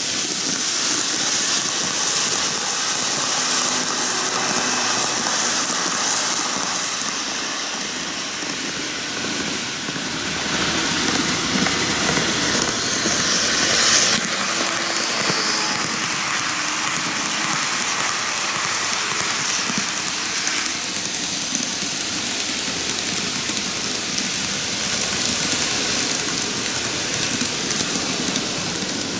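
TOMIX N-gauge model trains, an Odakyu 50000 VSE and a 4000 series, running on superelevated track: a steady fine rattle of small wheels on the rails, loudest about fourteen seconds in as the VSE passes close by.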